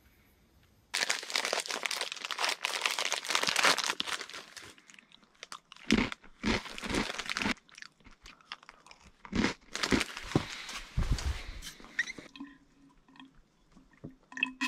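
A plastic snack bag crinkling and rustling as it is handled, starting about a second in, followed by bursts of crunching and chewing as a crunchy snack is eaten close to the microphone.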